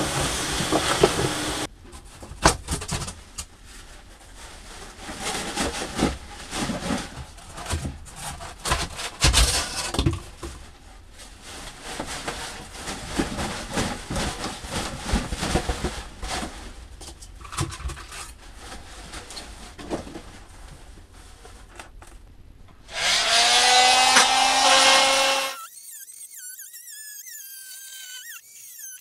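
Shop vacuum running, switched off about two seconds in. Then scattered knocks, clatter and plastic-bag rustling as debris is handled. Near the end comes a few seconds of loud motor noise with a rising whine that cuts off suddenly.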